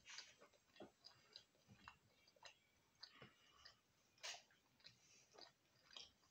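Faint, irregular crunching and mouth clicks of chewing on fried breaded chicken.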